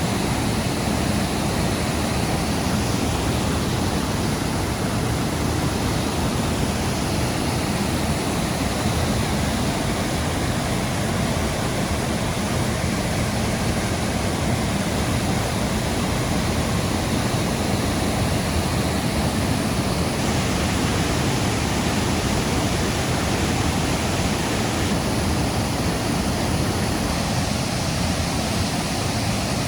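Water falling down Mie-no-taki, a three-tiered waterfall, in a loud, steady rush that does not change.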